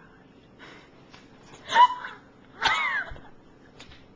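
Two short, high-pitched vocal cries from a person, a sharp yelp about two seconds in and a squealing cry that rises and falls in pitch about a second later.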